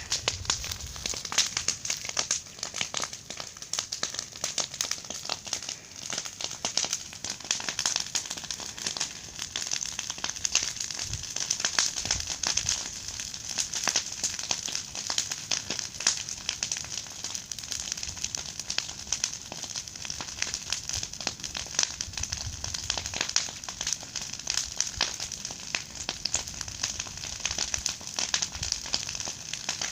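A large bonfire burning, with dense, irregular crackling and popping throughout and a low rush of flame underneath.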